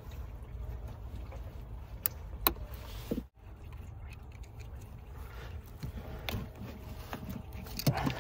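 Hose-clamp pliers and rubber coolant hoses being worked off the metal pipes of a transmission cooler: a few sharp clicks of clamp and tool handling over a low steady rumble.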